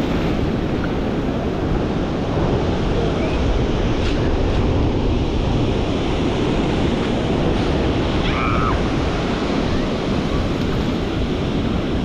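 Small waves washing in over wet sand at the water's edge: a steady rushing surf, with wind buffeting the microphone.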